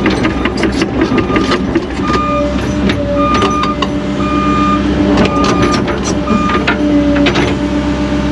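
Heavy construction machine's diesel engine running steadily, its backup alarm beeping about once a second as it reverses, with scattered clanks and knocks from the machine at work.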